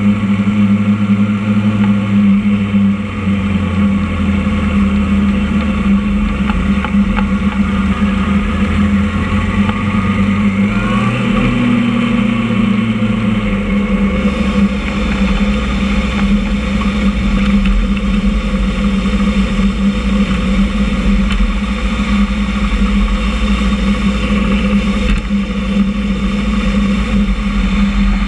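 Motorcycle engine running at low revs, heard from on the bike itself as it rolls slowly along, with a short rise in revs about eleven seconds in.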